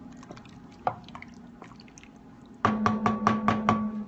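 Spatula stirring chowder in an enamelled pot: soft wet stirring sounds and light clicks, then, about two and a half seconds in, a quick run of about eight sharp knocks against the pot with a ringing tone under them.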